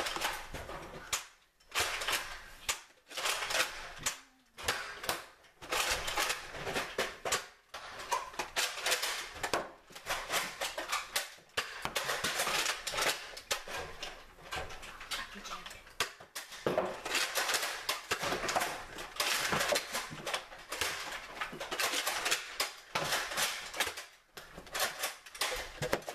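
Nerf blasters being worked and fired: irregular bursts of plastic clacking and clicking, with darts clattering.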